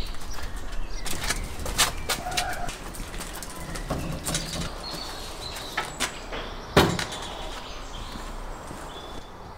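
Metal clanks and knocks from a barrel smoker grill being wheeled across paving stones, the loudest single knock about seven seconds in, with birds chirping.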